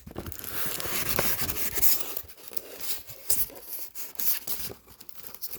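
Cardboard packing scraping and rubbing as a part is worked out of a tight box, a continuous scrape for about two seconds, then scattered knocks and rustles.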